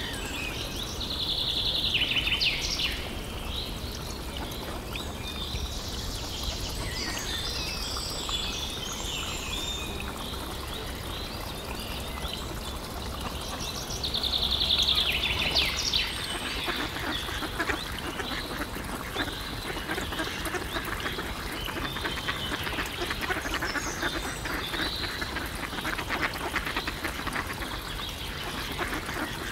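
Young mallard ducks quacking and calling, with high-pitched calls in short spells. From about halfway through there is a dense run of rapid small clicks as the flock crowds the dish and dabbles and pecks at the food.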